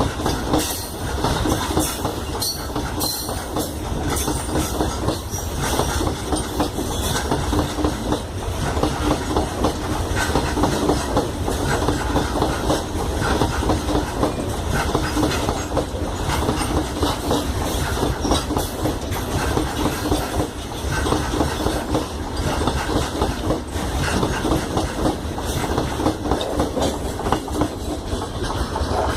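Freight train wagons rolling past, their wheels clattering steadily over the rail joints with a deep rumble underneath.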